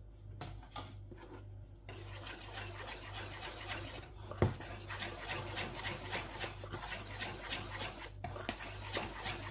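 Wire whisk beating thick cake batter in a stainless steel bowl. The tines make a fast, steady scraping rattle against the metal that starts about two seconds in, with one sharper knock against the bowl a little before the middle.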